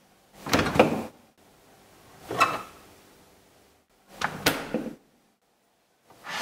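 Kitchen handling sounds in four short bursts. First a refrigerator door is pulled open by its handle, then come more clicks and knocks at the fridge. Near the end a frying pan scrapes as it is slid off a wooden shelf.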